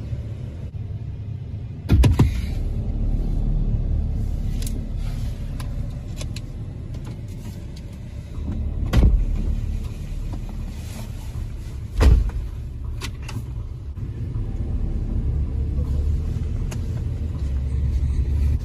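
Low, steady rumble of a pickup truck heard inside its cab, broken by three loud thumps about 2, 9 and 12 seconds in; the last thump is the passenger door being shut.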